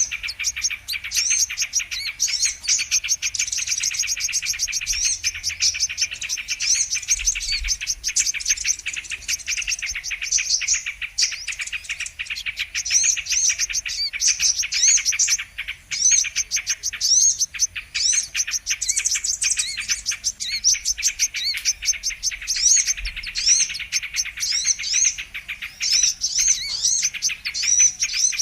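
Brown-throated sunbird (kolibri kelapa) song, played as a bird-lure recording: rapid, high chirping notes in long unbroken runs, with a couple of brief pauses.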